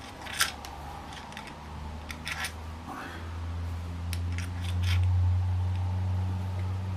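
Small metallic clicks and scrapes of a hex key turning the screw of a sling mount on an air rifle's wooden stock, with a sharp click about half a second in and short runs of clicks around two and four seconds in. A low hum swells underneath from about three seconds in and is loudest a little after the middle.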